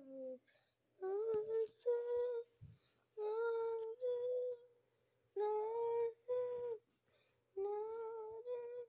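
A child's voice singing a wordless tune: four short phrases of held notes, with pauses between them.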